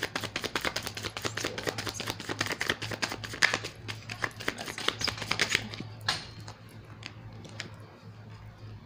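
A deck of tarot cards being shuffled by hand: a fast run of crisp card clicks for about five and a half seconds, then a few single clicks. A steady low electrical hum runs underneath.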